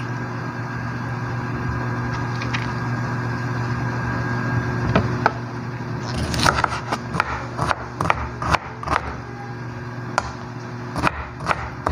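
Kitchen knife chopping pickled mustard greens on a plastic cutting board. Irregular sharp knocks come two or three a second from about halfway through, over a steady background hum.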